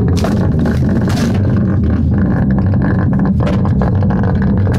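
Loud, bass-heavy music, with a harsh burst of crackling noise over it in the first second or so.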